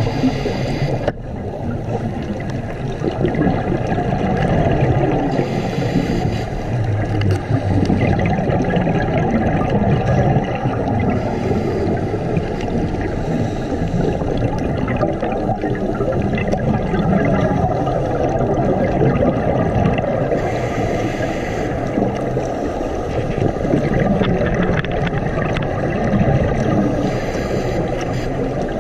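Scuba regulator breathing and bubbles heard underwater through a camera housing. A constant muffled rumble and gurgle, with a brighter breath swelling every several seconds.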